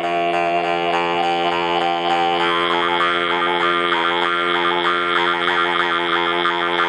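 Altai throat singing (kai): a steady low drone voice with a high, whistling overtone held above it and an overtone melody shifting in between.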